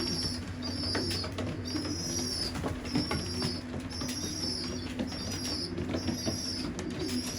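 Racing pigeons in a loft: a steady run of short, high, regularly repeated peeping calls over low cooing, with occasional soft wing flutters and clicks.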